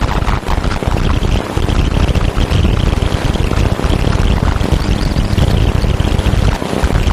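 Steady, dense rumbling noise with a fine crackle through it, an electronically generated soundtrack from a 'Garyaev matrix' device presented as the sound of a painting's energy.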